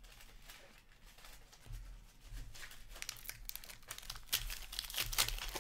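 Foil wrapper of a hockey card pack being torn open and crinkled by hand. The crackle starts faint and grows louder and denser in the second half.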